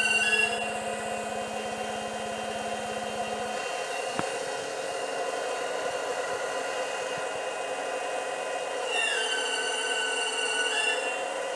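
Hydraulic pump of a 1:8 scale Caterpillar 390D model excavator running with a steady whine as the bucket is moved. About nine seconds in the whine drops in pitch and rises back near the end, with a single click about four seconds in.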